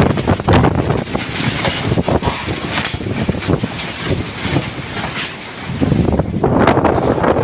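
Strong summer-storm wind gusting hard and buffeting the microphone, with scattered knocks and rattles through it. It eases a little about five seconds in, then picks up again.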